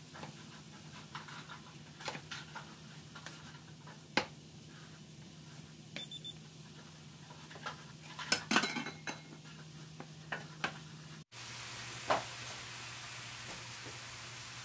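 Wooden spatula stirring diced onion and peppers in a stainless steel skillet, with scattered knocks and scrapes against the pan, a quick cluster of clacks about 8 seconds in, and a light sizzle, over a steady low hum. After a sudden cut about 11 seconds in, a steady hiss and a single knock on a steel mixing bowl.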